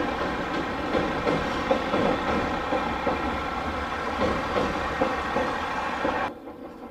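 JR East KiHa 110 series diesel railcars crossing a steel girder bridge: a steady diesel engine drone with a regular clatter of wheels on the rails. The sound cuts off abruptly near the end.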